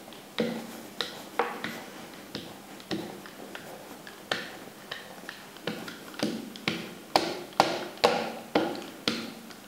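Irregular light taps and clicks, one or two a second and coming faster in the second half, as a small hand-held dough roller is worked back and forth over thin dough on a stoneware baking stone.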